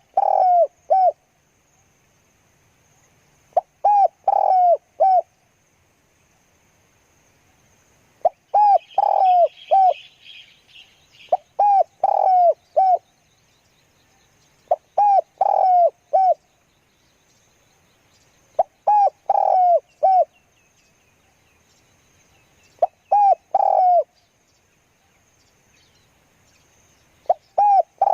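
Spotted dove cooing: a short phrase of three or four clipped coos repeated about every three and a half to four seconds, seven times in a row. A brief higher chattering call joins in once, about nine seconds in.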